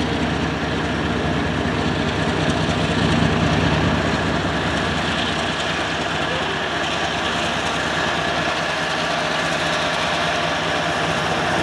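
Loaded coal hopper cars rolling past with steady wheel-and-rail noise, under the low steady running of a GE ES44AC diesel locomotive's engine that comes up behind the cars near the end.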